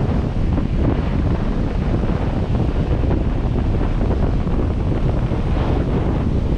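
Steady wind buffeting the microphone of a camera mounted outside a 4x4 as it drives along a beach. It makes a continuous, heavy low rumble with no breaks.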